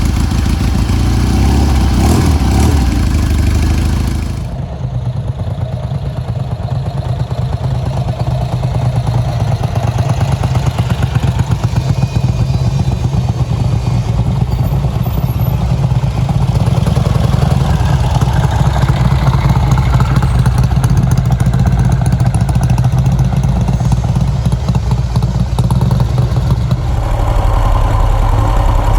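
Motorcycle engine running under way, at first with wind noise rushing over the microphone; about four and a half seconds in the wind hiss drops away abruptly and the engine's steady low drone carries on.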